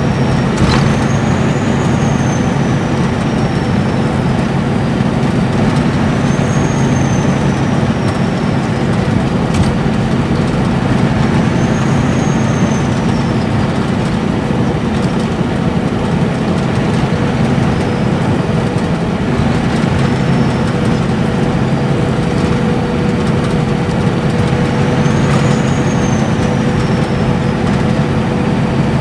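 Nissan Diesel Space Arrow RA coach's inline-six turbo diesel cruising steadily at highway speed, heard from inside the passenger cabin over steady tyre and road noise. A high turbocharger whistle rises and falls four times.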